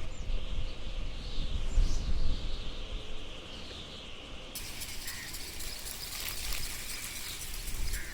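Rural outdoor ambience with bird chirps. A low rumble fades over the first two seconds, and a steady high hiss comes in about halfway through.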